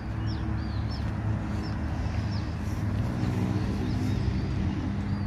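Steady low rumble of motor traffic, with small birds chirping repeatedly over it.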